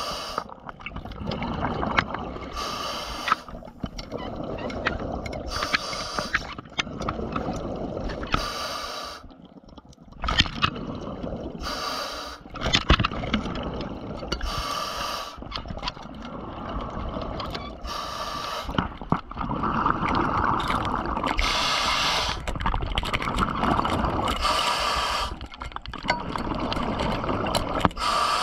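A scuba diver breathing underwater through a regulator: a short hiss of inhaled air about every three seconds, alternating with the bubbling rush of exhaled air, with scattered sharp clicks throughout.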